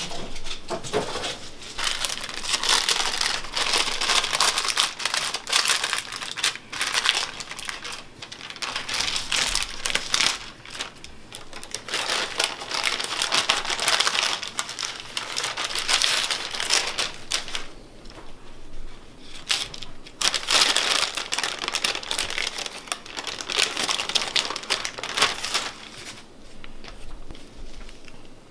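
Parchment paper crinkling and rustling as hands handle and peel it back from a slab of butter, in long crackly stretches with a short pause about two-thirds of the way through.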